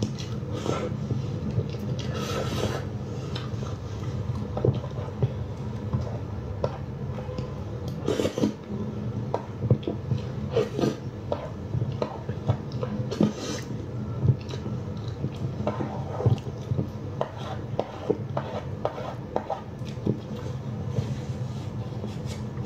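Eating sounds: chewing and scattered short clicks and knocks like utensils on dishes, over a steady low hum.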